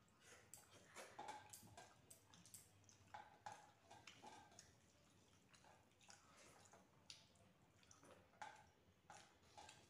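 Faint, irregular wet clicks and smacks of two people eating rice and curry by hand: chewing, lip smacks, and fingers squishing and mixing rice on metal plates.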